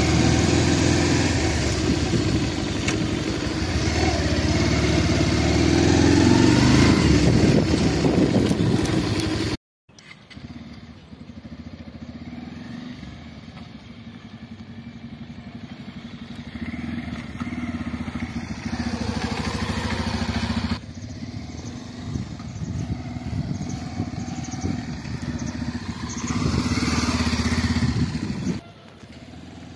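Bajaj Pulsar 150's single-cylinder engine running as the bike is ridden over a rough dirt track, loud from the rider's seat. About ten seconds in it cuts off briefly. The same engine is then heard quieter from beside the track as the bike rides by, revving up near the end.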